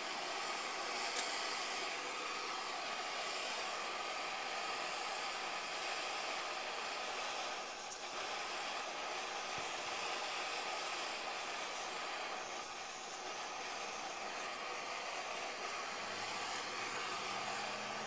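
MSR PocketRocket canister stove burning steadily under the Esbit coffee maker, a steady rushing hiss of the gas flame while the water heats toward the boil. A faint low hum joins near the end.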